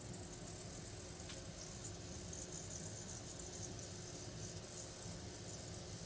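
Faint room tone: a steady hiss with a low hum underneath, and one faint tick about a second in.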